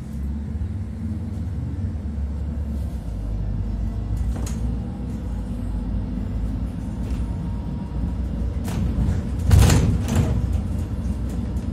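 Inside an Iveco Dekstra LF38 CNG minibus pulling away and driving: the natural-gas engine and drivetrain give a low rumble that sets in as it moves off, with body rattles and a loud brief clatter about ten seconds in.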